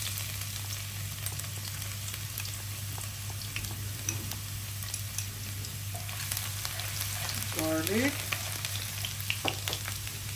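Minced garlic sizzling steadily in hot olive oil, stirred with a wooden spatula that scrapes and taps against the pan, the taps coming more often in the last few seconds.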